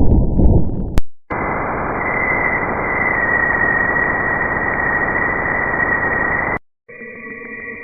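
Spacecraft radio recordings of planets turned into sound, played one after another. A low rumbling noise cuts off about a second in. A steady static-like hiss follows for about five seconds and stops abruptly. Near the end a new clip of several held, eerie tones begins.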